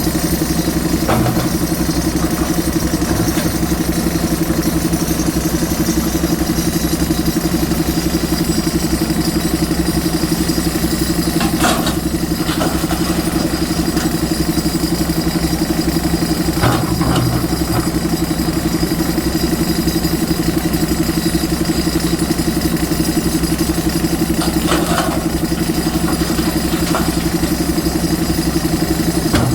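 Diesel engine of a JCB 3DX Super backhoe loader running at a steady speed, with a few short knocks.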